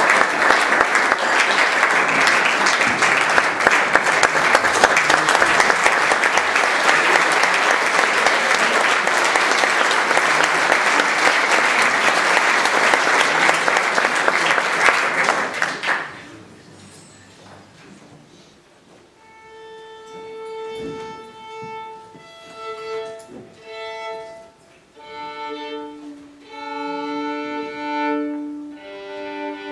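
Audience applauding for about sixteen seconds, the clapping dying away quickly. Then a solo violin tunes, bowing open strings in short held strokes, single notes and pairs of strings together in fifths.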